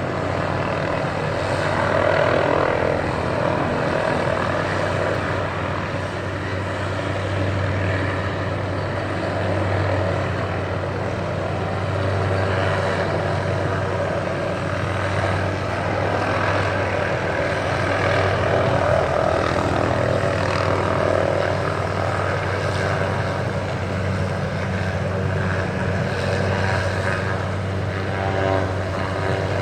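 Helicopter hovering, its rotor and engine making a steady low drone that swells and eases a little.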